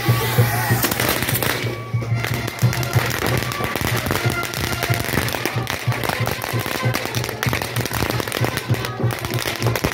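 A 'vaca loca' fireworks frame carried on a man's shoulders, spraying sparks and crackling with dense, rapid, irregular pops over music.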